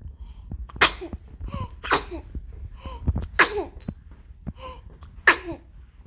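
A 77-day-old infant coughing: four short, sudden coughs a second or two apart, with small squeaky voice sounds between them.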